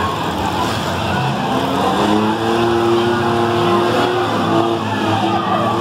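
Several demolition-derby minivan engines running and revving together, their pitches rising and falling as the vans push and ram each other.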